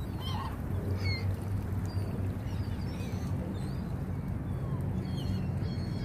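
Gulls calling: several short, high cries scattered through, over a steady low rumble.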